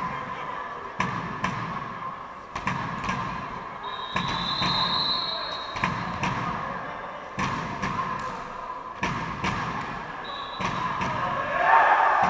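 Irregular thuds of a ball bouncing on a sports hall floor, ringing in a large echoing hall over a steady crowd murmur, with a short high squeak about four seconds in.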